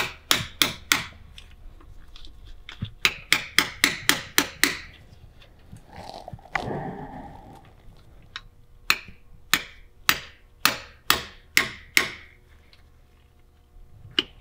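Hammer tapping on metal in three quick runs of sharp, ringing strikes, about three a second, as a leaking drivetrain oil seal behind the drive shaft flange is replaced. A short scraping rustle comes between the second and third runs.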